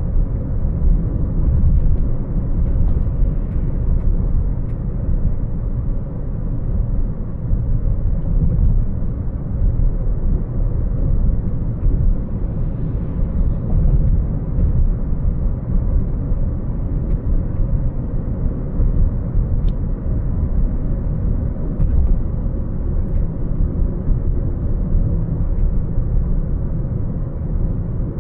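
Car driving: a steady low rumble of road and engine noise, with a few faint ticks.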